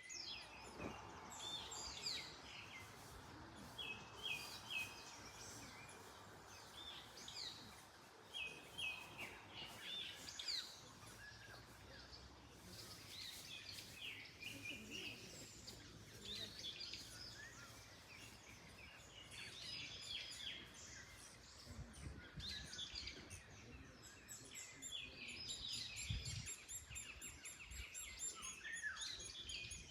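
Several songbirds chirping and singing, many short repeated calls and trills overlapping, over a soft rustle of wind in the trees. A few low thumps come in the second half.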